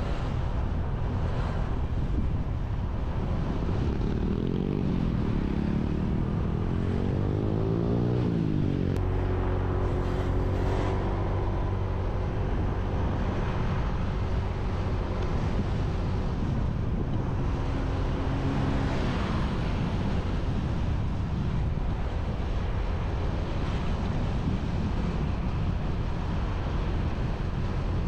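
Motorbike engine running on the move with wind rushing over the microphone; its pitch climbs as it speeds up from about four seconds in until about nine seconds, then holds steady, with another short climb around eighteen seconds.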